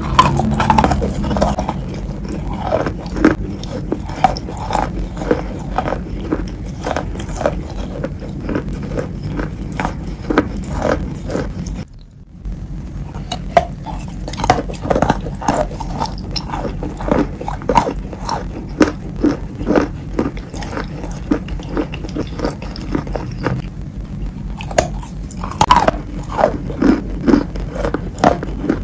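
Biting and chewing of wet chalk coated in clay paste: a long run of short crunches, with a brief gap about twelve seconds in.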